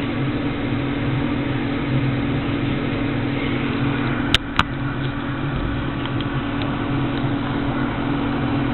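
Steady mechanical hum, like a fan or similar appliance running, with two sharp clicks close together a little past the middle.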